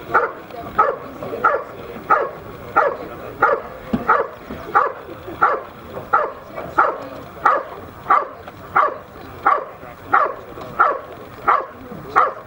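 A working dog barking steadily and rhythmically, about three barks every two seconds, at a protection-sleeve helper standing in a blind. This is the hold-and-bark of a Schutzhund/IPO protection routine: the dog holds the helper in place by barking without biting.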